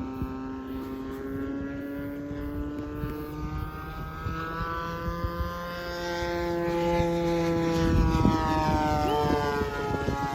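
Radio-controlled model airplane in flight, its propeller engine running steadily. The pitch slowly slides down and up as the plane passes, and it grows louder about eight seconds in.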